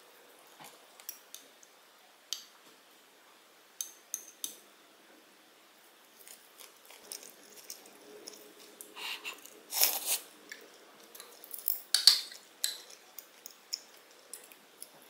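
Eating at the table: a wooden spoon clacking and scraping inside an earthenware pot of soft tofu stew, with scattered light clicks of tableware. The loudest sharp sounds come about ten and twelve seconds in.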